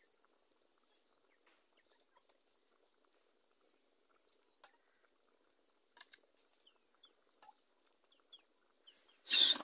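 Light, sparse clicks of a serving spoon against plates and a steel tray, with faint bird chirps. Near the end a sudden loud noisy sound breaks in.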